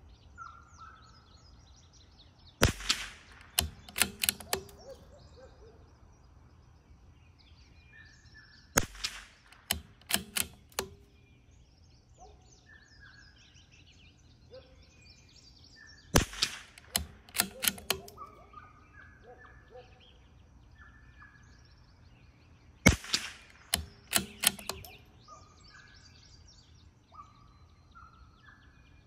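Four single shots from a CZ 457 bolt-action rimfire rifle firing Eley Match .22 LR, roughly six to seven seconds apart, each followed by a quick run of clicks as the bolt is cycled. Birds chirp faintly between the shots.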